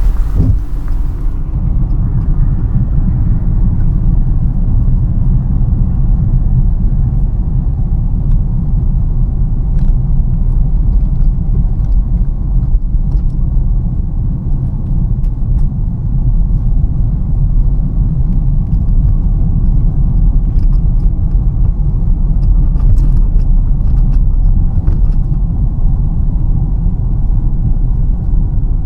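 Steady low rumble of a car's engine and tyres on the road, heard from inside the cabin while driving. A higher hiss cuts off about a second in, and faint light ticks come and go.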